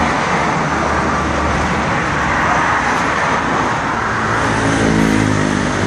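Steady motor-vehicle noise: an engine running close by amid road traffic, with a humming drone coming in a little after four seconds.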